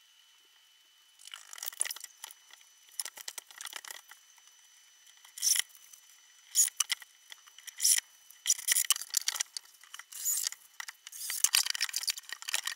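Handling noises as small cabinet doors are fitted into their frame: irregular rustling with sharp clicks and knocks, starting about a second in.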